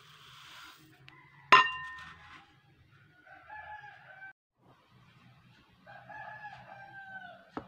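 Dry rice grains pour briefly into a bowl, then a single sharp ringing clink about a second and a half in. A rooster crows twice, fainter, each crow a second or so long, the second falling at its end.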